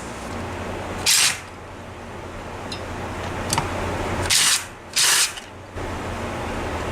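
Three short hissing bursts from a tool working on a Tomos A35 moped engine during disassembly: one about a second in, then two close together about four and a half seconds in. A few light clicks come between them, over a low steady hum.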